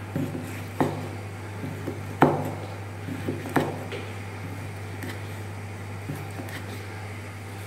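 A few sharp knocks and clacks of kitchen utensils on a wooden board and dishes, the loudest about two seconds in, over a steady low hum.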